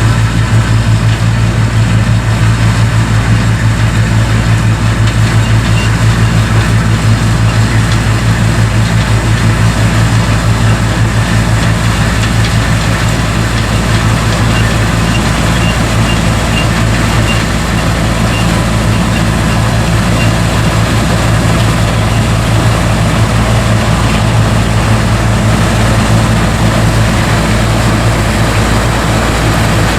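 New Holland TR99 combine's six-cylinder turbo engine and threshing machinery running steadily, loud and close, while harvesting soybeans: a low, even drone.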